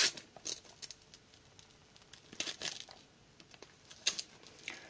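Christmas wrapping paper crinkling as fingers work at the folded, taped edge of a wrapped present: a few short rustles and crackles with quiet between them.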